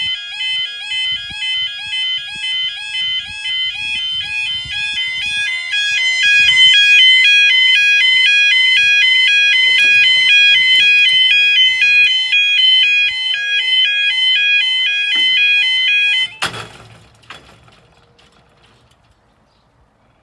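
The newly installed electronic level crossing alarm sounds a repeating warbling pattern of stepping tones while the barriers lower. It gets louder about six seconds in and cuts off suddenly about sixteen seconds in, leaving only faint rustling.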